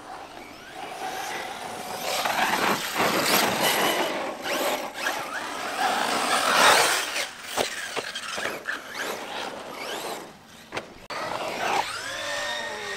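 RC cars' electric motors whining up and down in pitch with the throttle, tyres scrabbling and spraying over loose dirt, with a few sharp knocks of the chassis landing or hitting the ground in the second half.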